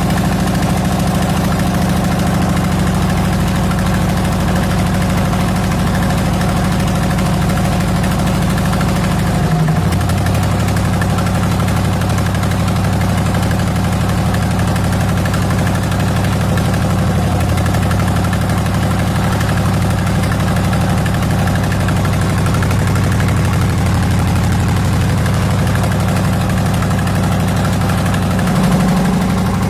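Fishing boat's engine running steadily under way, its note shifting about a third of the way in and again near the end.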